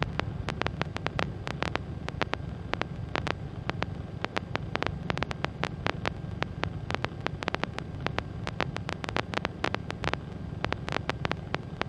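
Skyranger microlight's engine in cruise, a steady low drone with a rapid, irregular crackle of clicks over it, heard on the cockpit radio and intercom audio rather than in the open air.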